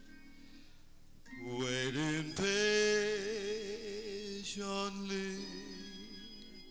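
A man singing a slow song with vibrato into a handheld microphone over quiet instrumental backing. His voice comes in a little over a second in and holds one long note, then a second one.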